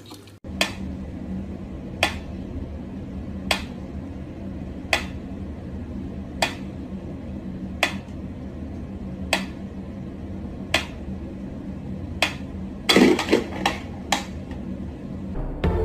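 Mechanical pendulum metronome ticking slowly and evenly, about one tick every second and a half. Near the end there is a louder clatter and a few quicker knocks.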